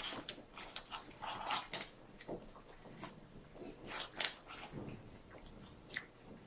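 Mouth noises of a person eating with no hands: irregular wet smacks, clicks and slurps as she takes food straight from the plate with her mouth and chews.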